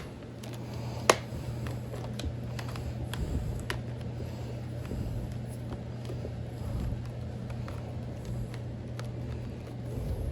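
Handling of a Hoover vacuum cleaner: a sharp click about a second in, then scattered light clicks and knocks, over a steady low hum.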